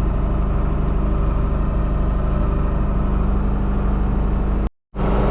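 John Deere 4840's six-cylinder turbo diesel running steadily after an engine overhaul, sounding healthy. The sound drops out for a moment near the end.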